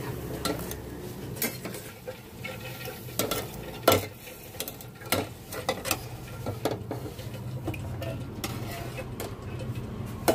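Gulab jamun balls frying in hot oil with a soft sizzle, while a perforated steel skimmer turns them, clinking and scraping against the steel pan every second or so; the sharpest clink comes about four seconds in.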